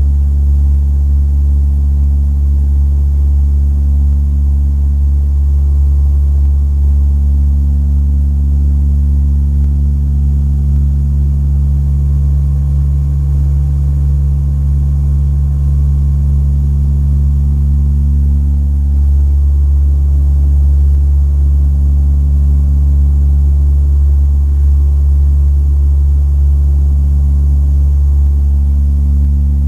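Steady drone of a De Havilland DHC-8-300's Pratt & Whitney PW123 turboprop engines and propellers, heard inside the cabin: a deep hum with several steady tones above it, one of which fades and returns in the second half.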